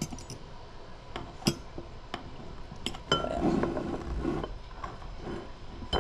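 Scattered light clinks and clicks of metal against a glass canning jar as a jar of home-canned pickles is handled and opened, with a short scraping, rustling noise about three seconds in.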